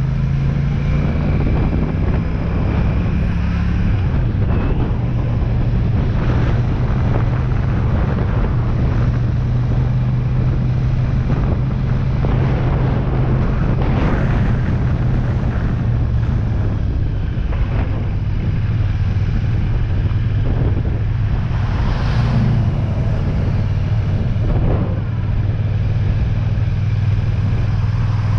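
Royal Enfield Shotgun 650's parallel-twin engine running steadily at a low cruising speed, heard from the rider's helmet with wind rushing over the microphone.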